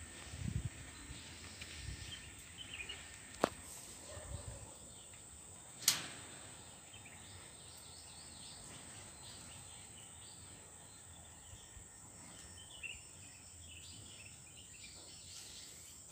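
Faint outdoor ambience: scattered small bird chirps over a steady high insect drone, with a few low thuds early on and two sharp clicks, the second the loudest, about two and a half seconds apart.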